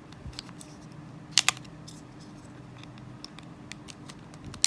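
Light clicks and scrapes of a cutter blade prying at the plastic casing of a Ledger Nano S hardware wallet, with two louder snaps close together about a second and a half in.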